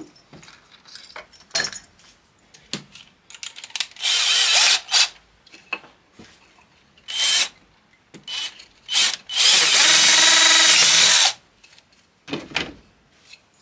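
Cordless drill boring a hole through a small wooden strip: a few short bursts of the motor, then one longer run of about two seconds near the end.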